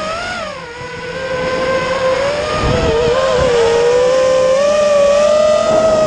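Eachine Wizard X220 FPV racing quadcopter's brushless motors and propellers whining, recorded from its own onboard camera. The pitch dips under a second in as the throttle eases off, wobbles with a low rumble about halfway, then climbs slowly as it powers back up. Its buzz is likened to a swarm of bees.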